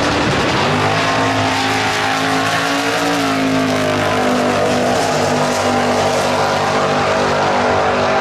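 Two drag-racing muscle cars, one a supercharged first-generation Camaro, launching from the line and accelerating hard down the strip. Engine pitch climbs, drops at a gear change about three seconds in, then climbs again.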